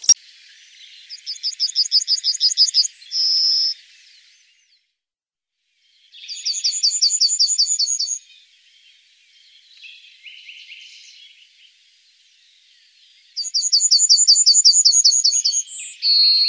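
Yellowhammer singing: three song phrases, each a fast run of about a dozen high, repeated notes. The first and last phrases end in a longer held note. Fainter chirps sound between the phrases.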